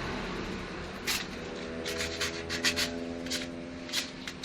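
Small metal parts of a telolet horn's disassembled valve, its clip and spring, being handled and rubbed clean: light rubbing and scraping, with a run of sharp clicks starting about a second in.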